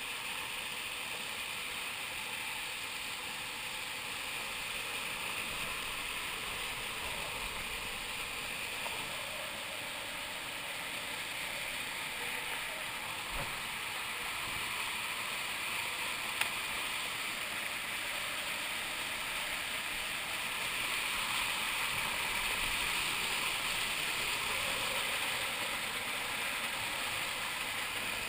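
River water rushing over a small waterfall and rocky cascades, a steady white-water rush that grows a little louder in the second half.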